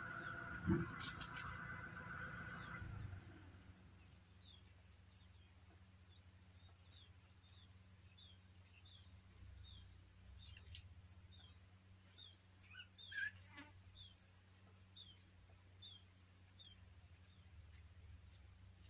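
Faint field ambience: insects trilling steadily at a high pitch, with a run of short chirps about twice a second and a single louder bird call about two-thirds of the way through. A steady lower hum and a knock under a second in fade out within the first three seconds.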